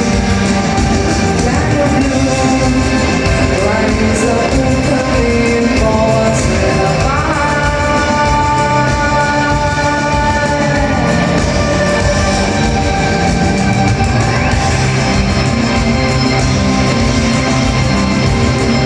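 Live rock band playing the song loud, with guitar; about seven seconds in, a note slides up and is held for about four seconds.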